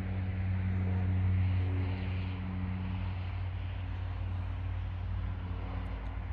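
Airbus A350-900's Rolls-Royce Trent XWB engines at taxi idle, a steady rumble and hiss, over a low steady hum whose upper tone weakens about halfway through.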